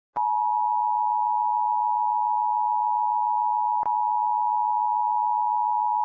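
Emergency alert attention tone: a single steady electronic tone, held without change, with a brief click about four seconds in. It signals that an emergency broadcast message is about to follow.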